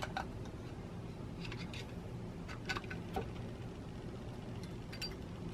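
A few faint, scattered clicks and taps of small parts being handled as a rotary cutter is taken apart: the blade, washer and nut lifted off the plastic body and set down, over a low steady hum.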